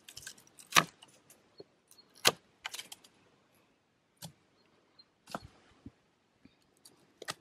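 Hand secateurs snipping and clicking as they cut back grapevine canes: a series of sharp separate snips, the loudest about a second in and just after two seconds in.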